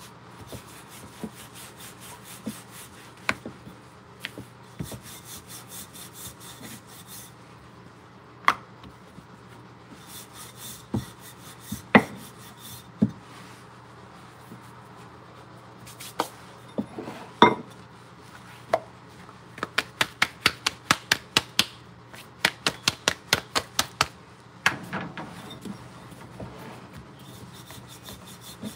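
Wooden rolling pin rolling out flatbread dough on a marble rolling board: rubbing and scattered knocks of wood on stone, then fast runs of clicks, about five a second, in the second half as the pin is worked back and forth.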